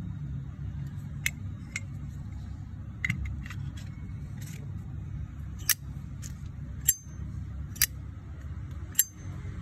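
Zippo Armor lighter's thick-walled case being flicked open and snapped shut over and over: a string of sharp metallic clicks, the loudest coming about once a second in the second half, some with a brief high ring.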